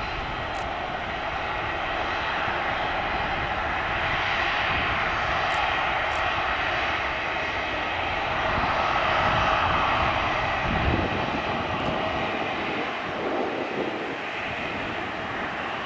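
Boeing 787-9 airliner's twin jet engines heard as a steady rushing roar as it lands, carrying on through the touchdown and the roll-out along the runway, swelling a little about two-thirds of the way in.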